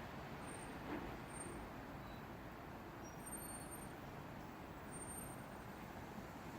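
Steady low background rumble of distant road traffic, with a faint knock about a second in.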